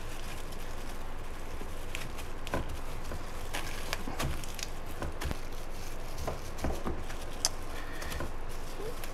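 Plastic cling wrap crinkling and rustling in short, irregular crackles as a fish fillet is rolled up tightly in it by hand, with one sharper click about seven seconds in, over a steady low background hiss.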